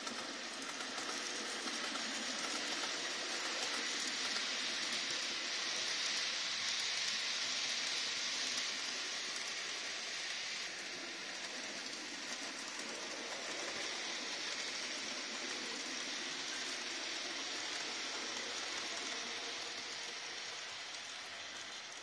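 Hornby TT:120 model train running past on the layout track: a steady rolling noise of wheels on rail and the locomotive's motor. It grows louder over the first several seconds and fades toward the end.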